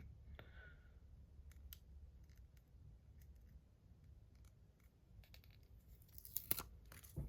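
Quiet fiddling with adhesive tape being picked off its backing, with faint scattered ticks and a few sharp clicks near the end.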